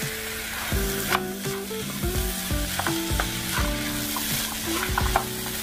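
Chicharrón, onion and diced tomato frying in a pan, sizzling steadily while a wooden spatula stirs them, with scrapes and light knocks against the pan.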